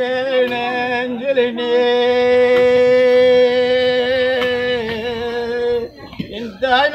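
A reed wind instrument holds one long steady note for nearly six seconds, then its pitch slides down and drops away, and a new, higher note starts near the end.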